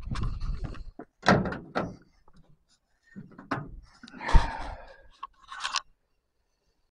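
A van door being opened, heard as a series of clunks and rattles with one heavy thunk a little over four seconds in.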